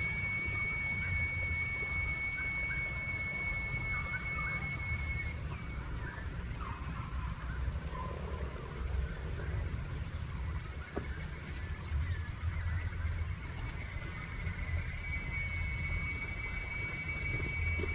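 Insect chorus: one steady high trill that stops about five seconds in and starts again near the end, over a dense hiss of many insects and a low rumble.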